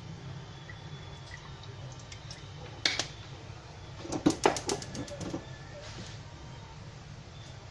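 Clicks and knocks from kitchen items being handled, over a low steady hum. One sharp click comes about three seconds in, then a quick run of clicks and knocks about a second later.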